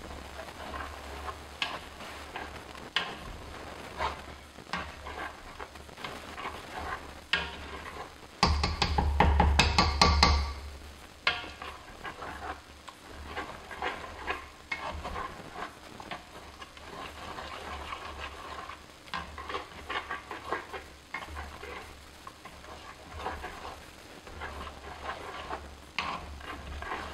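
Spoon stirring and mashing cherries and strawberries in a cast-iron pot, squashing the whole cherries for jam: a steady run of short scraping strokes, with a louder, faster spell of mashing about eight to ten seconds in.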